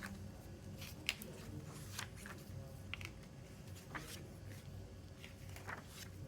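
A CD album and its packaging being handled by hand: scattered soft rustles and small clicks, with one sharp click about a second in.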